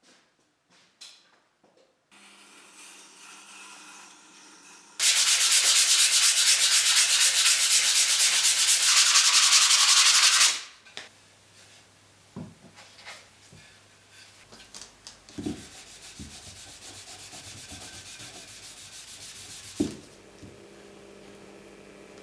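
Sandpaper sanding a round wooden instrument body, loud and steady for about five seconds from around five seconds in, then quieter sanding broken by a few light knocks of wood.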